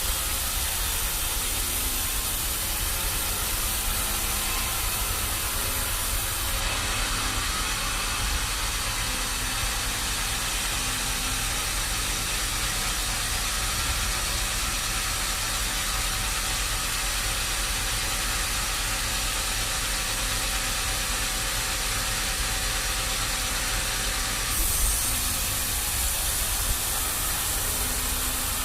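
Sawmill machinery running: a steady mechanical noise with a hissing edge and a low rumble, its character shifting slightly about six seconds in and again near the end.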